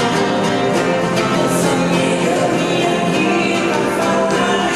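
Music from an ensemble playing instruments made from sisal flower stalks, with singing over sustained, held notes.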